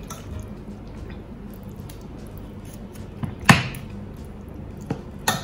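A kitchen knife knocking against a bamboo cutting board while cutting up raw chicken: a few short sharp knocks, the loudest about three and a half seconds in and two smaller ones near the end.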